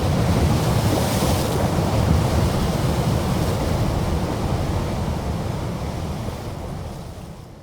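Steady rushing noise with a heavy low rumble, fading out over the last couple of seconds.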